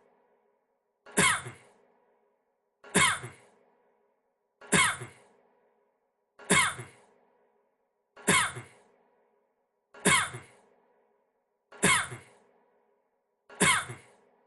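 A man's short cough played on a loop: the same cough repeats about every 1.8 seconds, eight times, with a faint hum between coughs.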